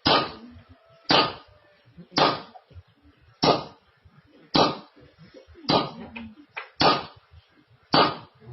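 Eight sharp knocks at an even pace of about one a second, each with a short ringing tail, like repeated striking blows.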